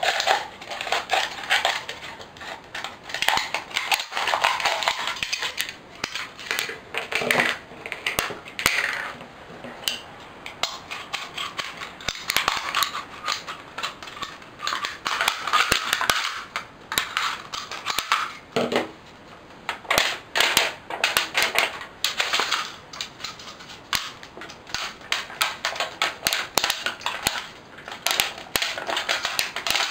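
Large sturdy scissors cutting up a thin aluminium drinks can: an irregular run of sharp snips and crinkling crunches of the metal as it is cut and bent.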